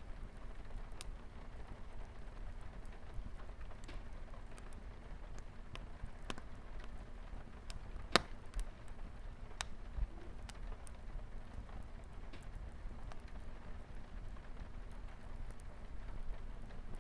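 Wood fire crackling with scattered small pops and one loud sharp snap about eight seconds in, over a steady low rumble and light rain pattering on a window.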